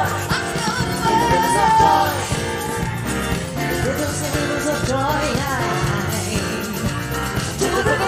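Live pop song: a female vocal group singing into handheld microphones over music with a steady beat.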